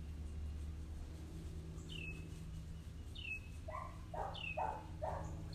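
A bird calling with short downslurred chirps about once a second, with four short, noisy rasps close together in the second half, over a steady low hum.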